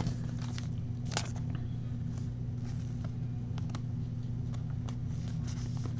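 Baseball trading cards being handled and flipped through, a few faint soft clicks and rustles of card stock, over a steady low electrical hum.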